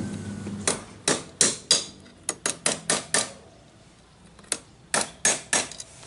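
Hammer blows on a rod held against the pressed-steel end cover of a washing-machine spin-dryer motor, knocking the casing apart after its rivets were drilled out. Sharp metallic strikes come in a run of about nine, then a pause of more than a second, then about five more.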